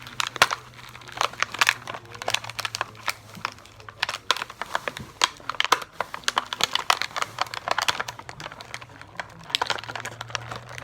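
Plastic toy packaging crinkling and crackling as it is pried and torn open by hand, with many irregular sharp clicks and crackles.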